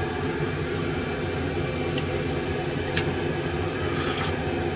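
Steady mechanical whir of a kitchen, with a metal ladle clinking twice against an aluminium saucepan as broth is spooned over simmering fish.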